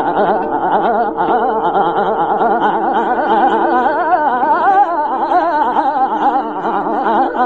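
Hindustani classical vocal performance of Raag Durga. A male voice sings fast, shaking melodic runs over a steady drone.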